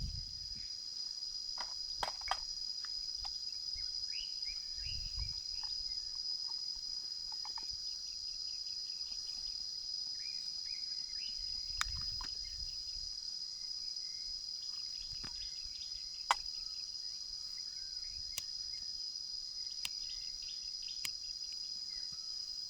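Steady high-pitched drone of insects calling, with scattered short bird chirps and a few sharp clicks.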